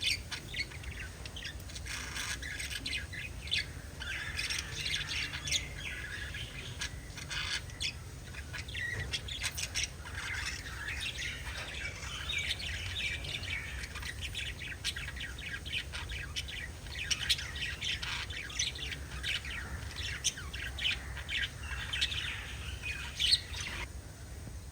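Pet lovebirds chirping: a dense, rapid run of short, high calls that goes on almost without a break and stops shortly before the end. A low, steady hum lies underneath.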